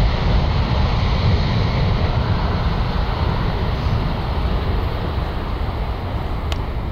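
Boeing 787-8 Dreamliner's twin turbofan engines at takeoff thrust during the takeoff roll: a loud, steady, deep rumbling roar that fades slightly as the jet accelerates away.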